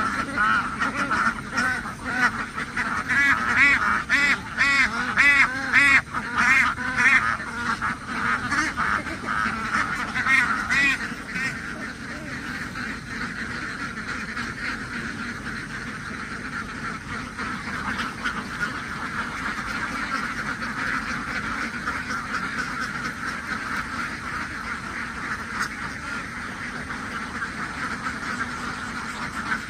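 Flock of domestic ducks quacking: loud separate calls for about the first twelve seconds, then a softer, steady chorus of overlapping quacks.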